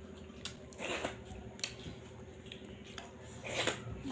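Fingers scraping the last grains of rice off a stainless steel plate: a handful of short scrapes and clicks, the longest cluster near the end.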